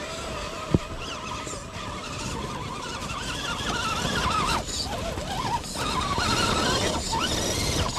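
RC crawler trucks' electric motors and gearboxes whining, the pitch rising and falling with the throttle as they climb through snow. There is one sharp click about three-quarters of a second in.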